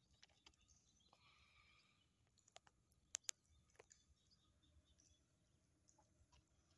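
Near silence with faint scattered clicks, and two sharper clicks close together about three seconds in.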